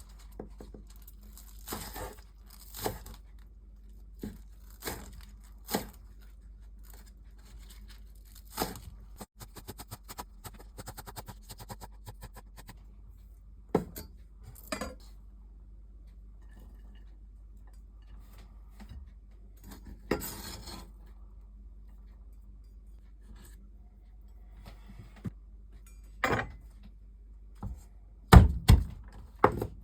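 Kitchen prep sounds: scattered clinks and taps of utensils against dishes, with a short patter of small ticks and a rustle partway through, then two heavy thuds near the end.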